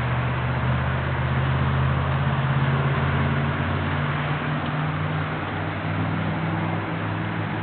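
Steady hiss of falling rain and ice pellets over a steady low hum.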